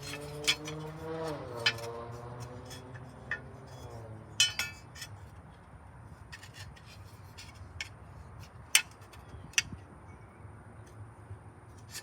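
Scattered light metallic clicks and clinks from mower parts being handled, with a few sharper knocks about four and a half, nine and nine and a half seconds in. Under them in the first four seconds runs a low, wavering drone that dips in pitch about a second in and fades out.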